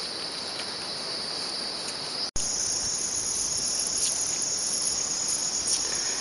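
Insects chirping in a steady, high-pitched chorus, typical of crickets or cicadas in countryside. About two seconds in, the sound drops out for an instant at an edit, and the chorus resumes slightly higher in pitch.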